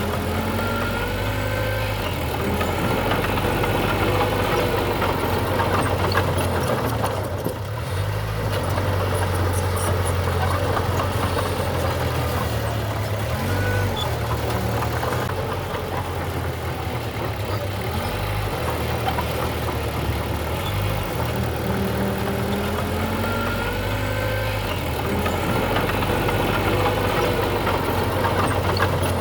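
Heavy diesel engine of earthmoving machinery, running continuously, its low hum shifting up and down in pitch every few seconds as the load changes. A few faint squeaks glide over it.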